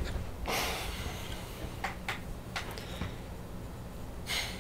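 A person settling at a laptop on a table: two soft rustles, about half a second in and near the end, and a few light clicks in between, about two seconds in.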